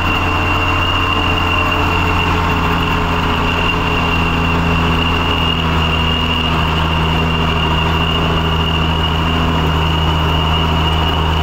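Truck engine running steadily at an even speed, a constant low hum with a thin high whine above it.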